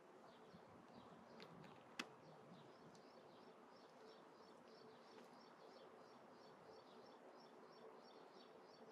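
Faint chirping of small birds, many short quick chirps in a run, with one sharp click about two seconds in.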